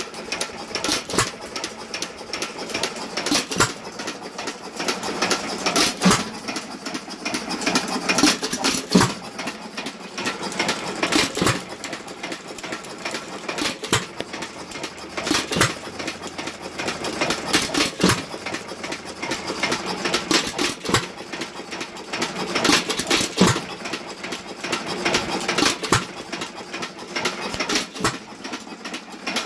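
Associated 1.75 hp air-cooled hit-and-miss engine running: a fast, continuous mechanical clatter with a louder sharp bang every two to three seconds. The bangs are the firing strokes, and the clatter between them is the engine coasting until its governor lets it fire again.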